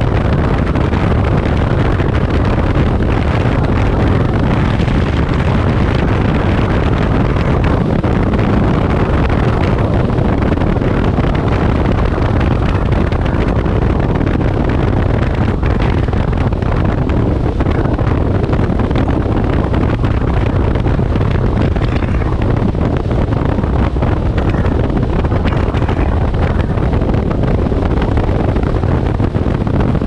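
Steady, loud wind rumble on the microphone of a camera mounted outside a moving car, mixed with the car's road noise.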